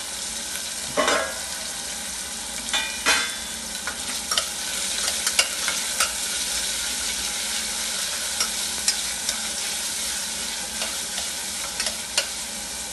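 Chopped onion and garlic sizzling steadily in hot olive oil in a pressure cooker, with a spoon scraping and knocking against the pot now and then as they are stirred.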